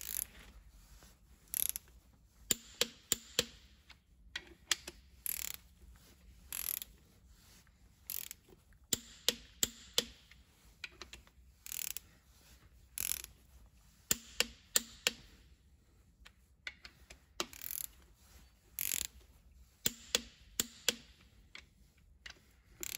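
Click-type torque wrench ratcheting as it tightens connecting-rod cap bolts to 75 Nm: short groups of sharp clicks, repeated every second or so.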